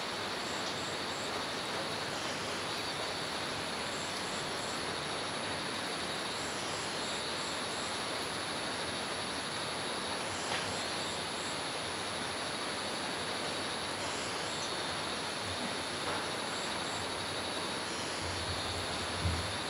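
Tropical forest ambience: a steady hiss under an unbroken high insect drone, with groups of three or four short high chirps every second or two. A brief low rumble comes near the end.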